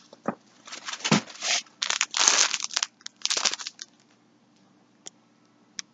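Packaging crinkling and rustling as yarn packs are handled, in several bursts over the first four seconds, then a few faint clicks.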